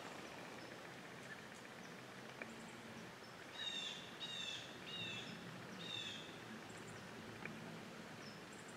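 A bird calling four times in quick succession, each call a short downward-sliding note, over faint steady outdoor background noise.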